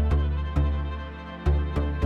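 Background music: bowed strings held over a deep bass, with sharp percussive hits at a steady beat.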